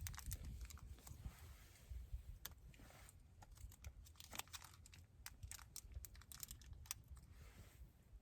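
Wood campfire crackling faintly, with irregular sharp pops and clicks.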